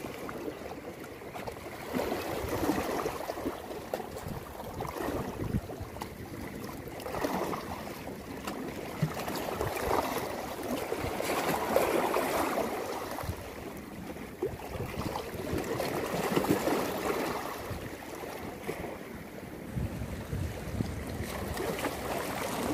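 Sea water washing against shore rocks, swelling and ebbing every few seconds, with some wind on the microphone.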